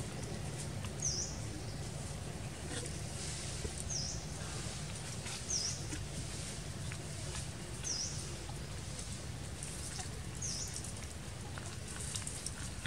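A bird chirping: five short, high chirps, each dipping and rising in pitch, spaced about two seconds apart, over a steady low hum and faint rustling clicks.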